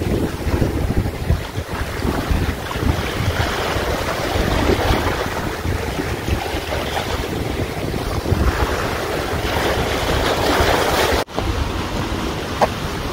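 Wind buffeting the microphone in gusts, over the wash of surf on rocks. The sound drops out for an instant near the end.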